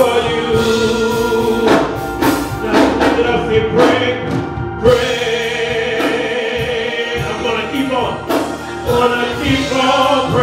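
Gospel praise team of several voices singing into microphones, holding long notes between short breaks.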